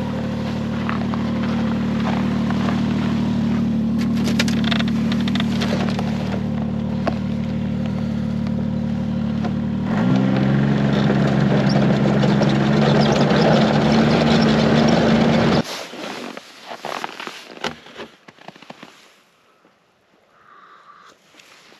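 Snowmobile engine running steadily, climbing to a higher pitch about ten seconds in as it speeds up, then shut off suddenly about fifteen seconds in, leaving only faint clicks and rustles.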